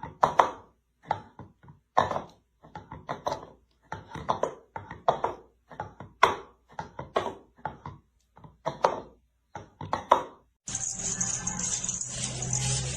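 A run of short, sharp knocks or taps, one or two a second, each cut off by silence. Near the end it gives way suddenly to a steady hiss with a low hum.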